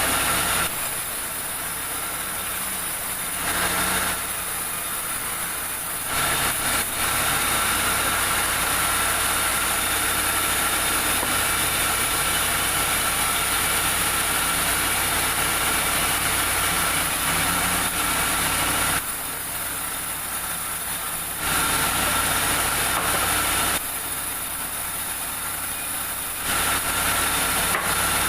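Sawmill saw and its machinery running steadily with a high whine. The sound steps between louder and quieter stretches every few seconds.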